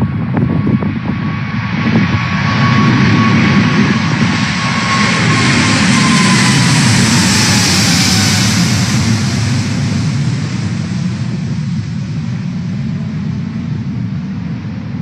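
Jet engines of a four-engined Boeing 747 at takeoff power as it climbs out and passes directly overhead. The noise builds to a peak with a strong hiss about eight seconds in, while a whining tone falls in pitch as the plane goes over, then the sound slowly fades as it climbs away.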